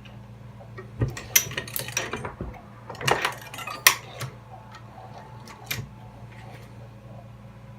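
Metallic clicks and clinks from handling a Dillon XL650 reloading press while its crimp die is adjusted a fraction of a turn. The clicks come in a quick cluster from about one to four seconds in, with one more near six seconds.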